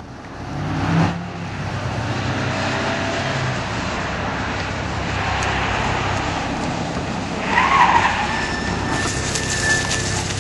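A station wagon driving up and pulling to a stop, its engine running steadily with tyre noise, and a short squeal about three quarters of the way through.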